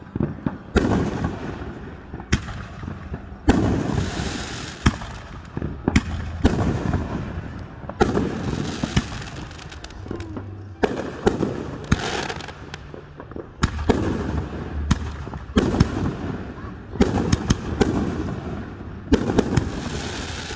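Aerial fireworks display: a continuous run of sharp bangs from shells bursting overhead, some in quick clusters, each trailing off in a low rumbling echo.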